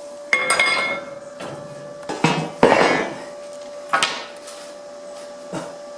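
Steel rail clanking and ringing in about four loud metallic knocks as it is worked to straighten its bend, with a steady hum underneath.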